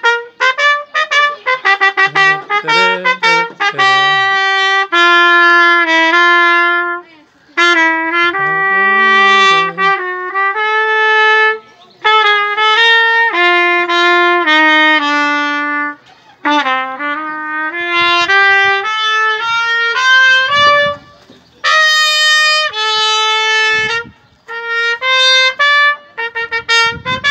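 Solo trumpet playing a melody, a children's song that doubles as a football club song. Runs of quick notes and longer held notes come in phrases, with short breaks between them.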